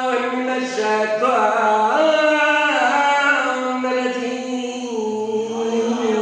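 A man's solo voice chanting a devotional Urdu recitation (qasida/marsiya style) into a microphone, in long held notes that slide between pitches.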